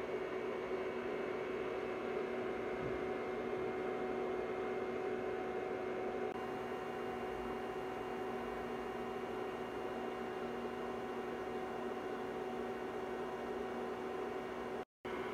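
A steady hum with an even hiss beneath it, holding one level throughout; it cuts out for a moment near the end.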